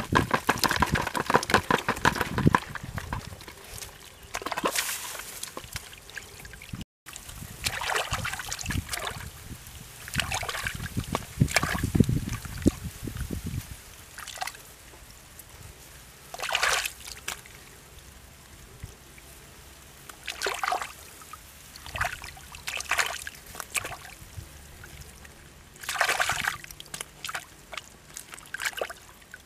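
Wet mud and fish spilling from a woven basket into a plastic bucket in a quick patter. After that come hands sloshing and splashing through shallow muddy water in separate bursts a few seconds apart.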